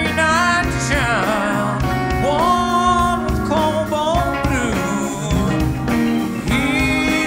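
Live rock band playing: acoustic guitar and drums under a lead melody line that slides and bends in pitch.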